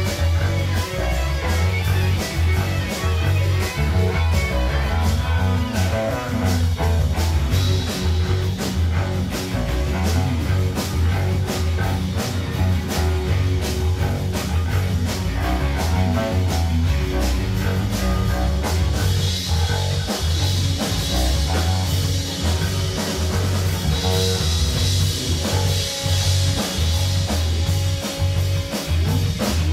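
Improvised instrumental rock jam: electric guitars, keyboard and a Pearl drum kit playing a driving groove over a heavy bass low end. The cymbals ring louder from about two-thirds of the way through.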